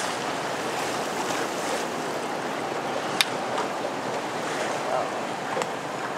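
Steady rush of wind and water from a small boat under way along the coast, with a sharp click about three seconds in.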